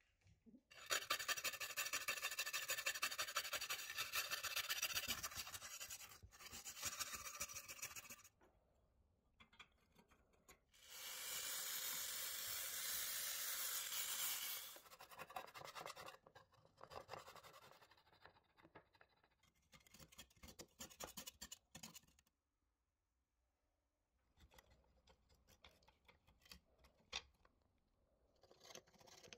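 An aerosol paint-remover can hissing in two long sprays onto rusty painted sheet-metal toy parts. This is followed by scattered scratching and scraping as the softened paint is worked off the metal with a stick.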